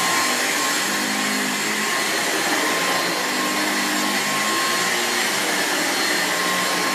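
Dyson V6 Absolute cordless stick vacuum running on carpet with its motorised direct drive floor head. It makes a steady rush of air over a high motor whine, with a lower hum that wavers as the head is pushed back and forth.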